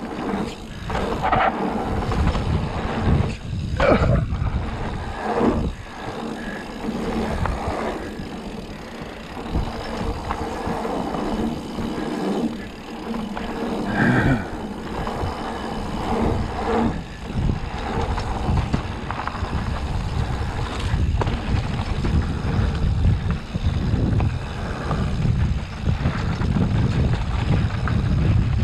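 Wind rushing over the microphone and the rattle of a mountain bike riding fast over a rough dirt trail. Several sharp knocks in the first few seconds and another about halfway through, from the bike hitting bumps or landing.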